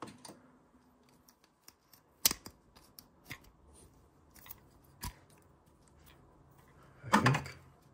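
Sparse small clicks and taps as a new Vaillant ecoTEC flow sensor, a brass elbow with a black plastic housing, is handled while O-rings are fitted to it, with a louder burst of handling noise near the end.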